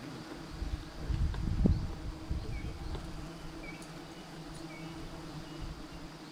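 Swarm of giant honey bees buzzing around their open comb, a steady hum, with a louder low rumble between about one and two and a half seconds in.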